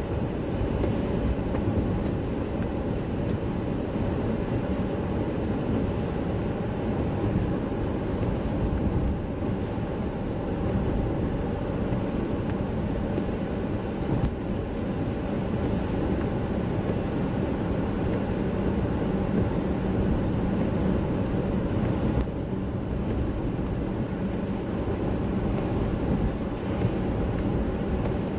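Steady running noise of a car on a wet road, heard from inside the cabin: engine and tyre noise.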